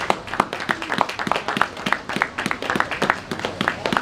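A few people clapping their hands in quick, uneven applause.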